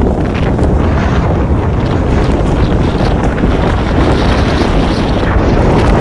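Strong blizzard wind blasting across the microphone: a loud, steady rush heaviest in the low end.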